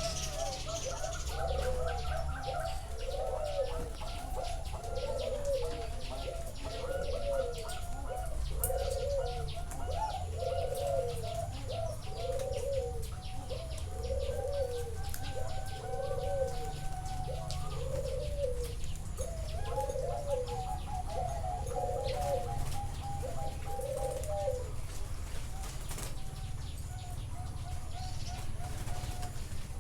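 Zebra doves cooing. One bird repeats rounded coos about every second and a half until near the end, while others give quicker, higher trilling coos over them.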